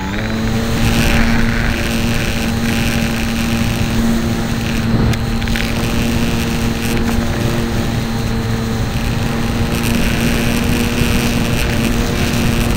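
Electric motor and propeller of a Hobbyzone Super Cub RC airplane in flight, heard from a camera mounted on the plane: a steady whine that steps up in pitch right at the start as the throttle is raised, then holds, with wind rushing over the microphone.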